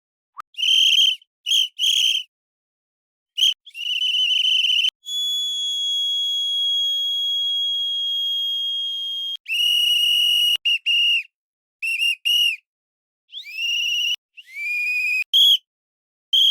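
Blown whistle blasts, shrill and high-pitched, separated by clean silences. First come a few short blasts, then one long steady blast of about four seconds. After that come quick double chirps and a few blasts that slide upward in pitch as they start.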